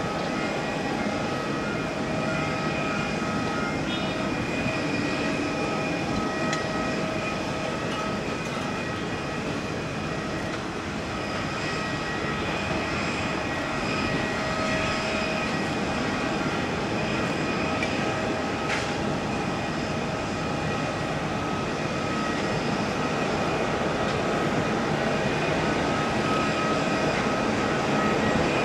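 Jet engines of an Airbus A320neo running: a broad rushing roar with steady whining tones on top, growing slightly louder near the end.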